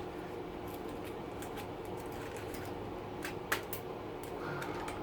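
A few sharp little clicks about three and a half seconds in, over a low steady hum: small plastic wire-harness connectors being worked loose and unplugged from a Bosch dishwasher's control board.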